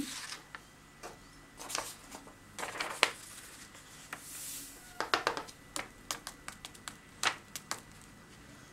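A sheet of paper rustling and crinkling as excess black embossing powder is tipped off it back into its pot, with a soft hiss of powder sliding about four seconds in. Scattered light taps and clicks come from the paper and the pot being handled.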